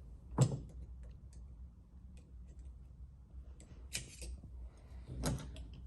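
Parts of a shearing machine's solid downtube being handled: a few sharp clicks and knocks, about half a second in, about four seconds in and near the end, with faint ticks between.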